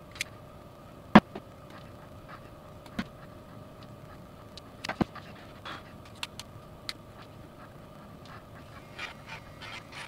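Small clicks and knocks of plastic model-car parts and hand tools being handled on a desk mat, the loudest about a second in, over a faint steady hum.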